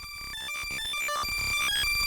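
Synthesized high-pitched electronic beeping tones, chopped rapidly and irregularly by a slicer effect and roughened with distortion, growing steadily louder.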